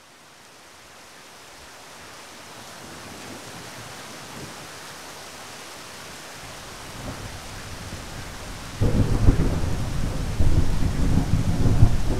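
Steady rain fading in, then thunder: a low rumble that builds from about seven seconds in and breaks into a loud clap of thunder near nine seconds, with a second loud peak about a second and a half later.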